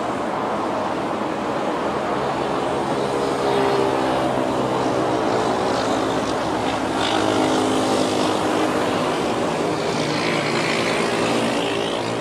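Boeing 777-300ER's twin GE90 turbofans at climb thrust after takeoff: a steady jet roar with a drone of several steady tones from the engines running underneath it.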